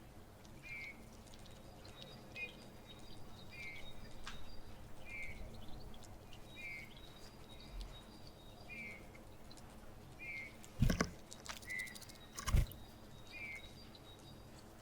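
Great tit repeating a short call about once a second. Near the end come two sharp knocks, a second and a half apart.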